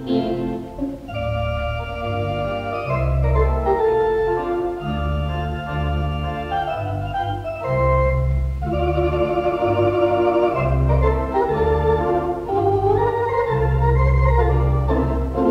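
Wurlitzer theatre organ (a 4-manual, 14-rank cinema organ) playing held chords over a deep bass line that moves about once a second. It is heard off a 1960s mono tape recording of a radio broadcast, with a dull, limited top end.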